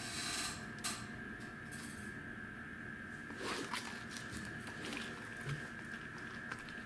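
Pembroke Welsh corgi taking a piece of food from a hand and chewing it: soft rustles, small clicks and mouth smacks. A steady high hum runs underneath.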